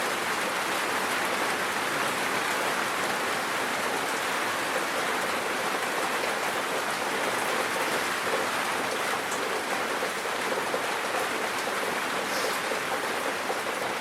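A steady, even hiss that neither rises nor falls, rain-like in character.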